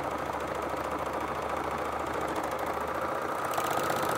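Overlocker (serger) running steadily as it stitches the folded edge of a jersey hem, its needles and loopers making a fast, even chatter. About three and a half seconds in it gets a little louder and brighter.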